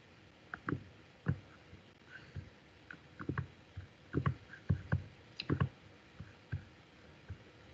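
Clicking and tapping on a computer: about a dozen irregular sharp clicks, each with a dull knock, some in quick pairs.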